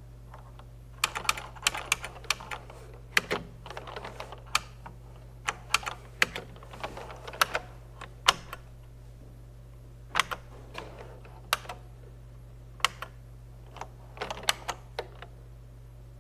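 Computer keyboard keys pressed one at a time and in short quick runs, separate clacks with pauses between them, as menu choices are made, over a steady low hum.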